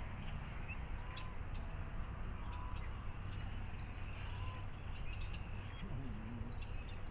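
Small wild birds chirping with short, high calls scattered throughout, over a steady background of outdoor noise.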